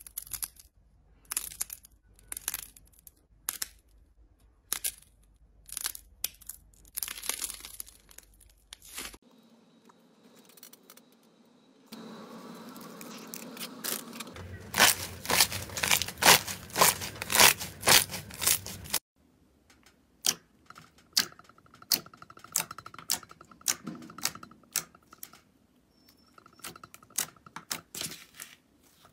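Slime and soft clay being squeezed and pressed by hand, giving trains of sharp crackling clicks and pops. The loudest, densest run of pops comes in the middle.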